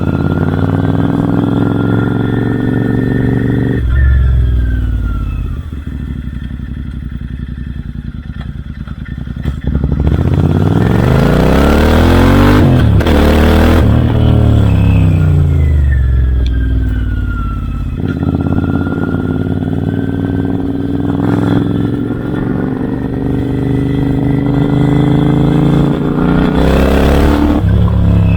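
Royal Enfield Interceptor 650 parallel-twin engine running through aftermarket Red Rooster Performance exhausts. Its pitch climbs, drops sharply about four seconds in, and eases off for several seconds. It then rises and falls again and pulls up steadily through the second half.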